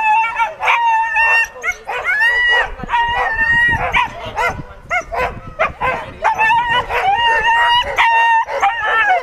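Excited dogs yelping, barking and howling in quick, high-pitched calls, some held briefly, as they are held back at the start line of a sled dog race, eager to run.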